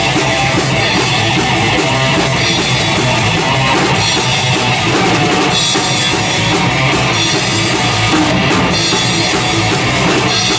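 Rock band playing an instrumental passage without vocals: a drum kit with bass drum keeping a steady beat under electric guitar.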